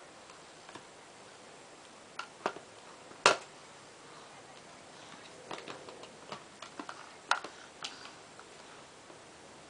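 Scattered small plastic clicks and taps as a toddler handles a toy flip phone while sitting in a plastic storage bin, with one sharper knock a little past three seconds in.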